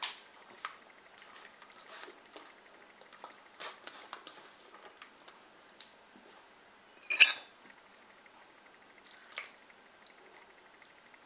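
Fingers mixing rice on a stainless steel plate, with scattered small clicks and scrapes against the metal. A loud sharp clink of dishes about seven seconds in, and a lighter one a couple of seconds later.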